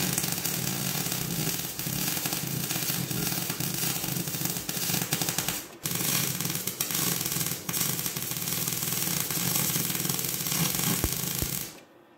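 Gas-shielded (argon) arc welder crackling steadily as it lays a weld on steel plate, with a low buzz under the crackle. The arc breaks off briefly about six seconds in, then runs again and stops shortly before the end.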